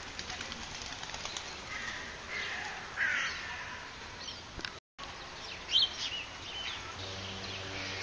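Nene (Hawaiian geese) giving a few short calls about two to three seconds in. After a brief break, birds give sharper calls near six seconds, and a low steady hum begins near the end.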